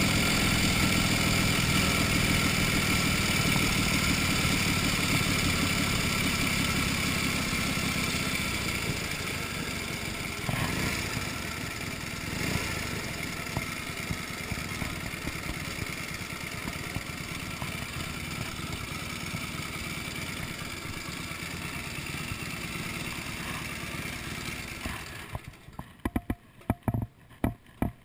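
1931 Indian 101 Scout's flathead V-twin engine running as the bike rides along, easing off after several seconds and then running steadily at low speed. About three seconds from the end the engine cuts off suddenly, and a few sharp clicks and knocks follow.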